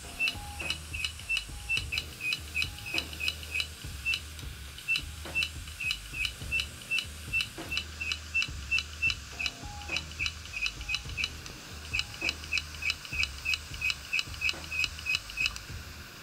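Opened hard disk drive powered up with its lid off: the head actuator clicks about three times a second in runs with short pauses, over a low hum. This repeated clicking is the fault the drive shows whenever it is connected, the sign of a failed drive.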